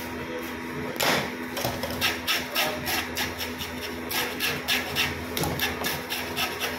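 Knife rasping over a black pomfret's scaly skin on a plastic cutting board: a knock about a second in, then quick scraping strokes, about three or four a second.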